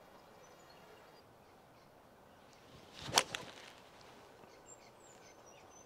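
A golf club strikes the ball off the tee with one sharp crack about three seconds in, the shot played as a low stinger. Faint bird chirps near the end.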